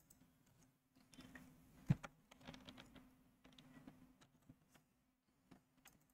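Faint, scattered clicks of computer keys, with one sharper click about two seconds in and a few quick ones just after, over a faint steady low hum.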